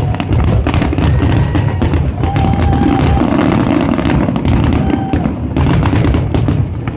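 Aerial fireworks going off in rapid succession: dense bangs and crackling over a continuous low rumble, with a few brief held tones cutting through, easing a little near the end.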